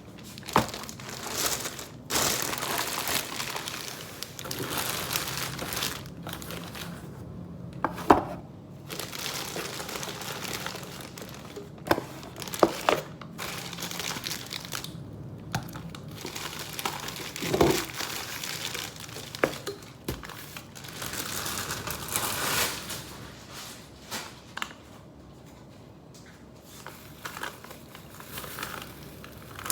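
Packaging being handled, crinkling and rustling in stretches, with a few sharp clicks and knocks between.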